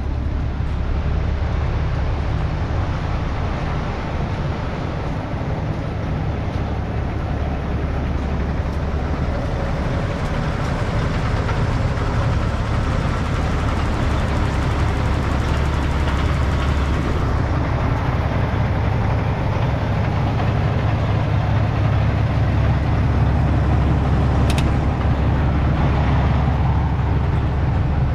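A 2004 Mack CL733 truck's diesel engine idling steadily.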